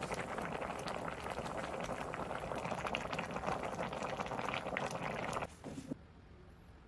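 Kimchi stew boiling hard in a pot, bubbling and popping steadily; the sound cuts off about five and a half seconds in.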